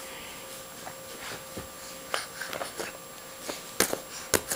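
A baby's soft grunts and breaths, with a few sharp slaps of small hands on the sofa edge near the end.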